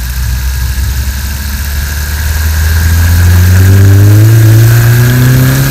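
VW 1.8T turbocharged four-cylinder engine heard through a knock sensor on its cylinder head, accelerating under load in second gear: steady at first, then rising in pitch and getting louder from about halfway in as the revs climb. The owner reads this signal as showing a little knock at low revs under high load, and possibly a slightly loose chain tensioner.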